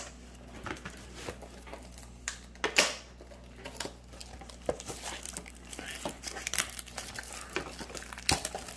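Hands handling a cardboard trading-card display box and the plastic-wrapped boxes inside it: scattered rustling, crinkling and light knocks, with a louder scrape about three seconds in and busier crinkling in the second half.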